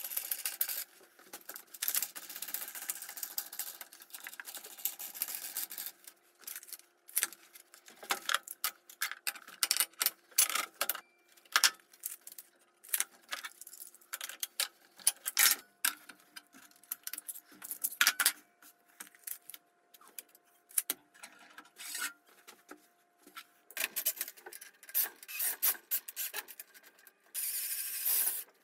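Spanners, nuts and washers clinking and clattering against steel threaded rod during hand assembly, with stretches of rubbing and scraping at the start and near the end.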